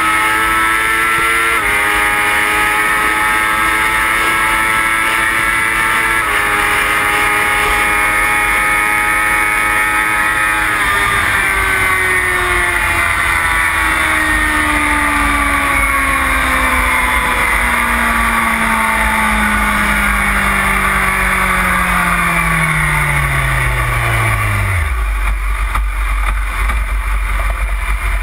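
BMW S1000RR superbike's inline-four engine at high revs, with two quick upshifts in the first six seconds. About ten seconds in the throttle closes and the engine note falls steadily as the bike slows, until the engine note drops away near the end, leaving loud wind rush.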